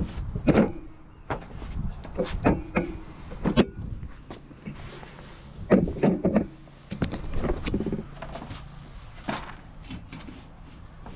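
Irregular knocks, clunks and rattles of hands-on work in the back of a van: parts and tools being handled and shifted, in uneven clusters with a low background rumble.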